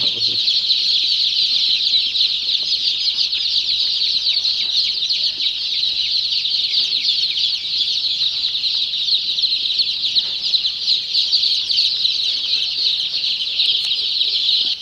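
A brooding house full of Sonali chicks peeping together: a dense, steady chorus of many short, high-pitched peeps.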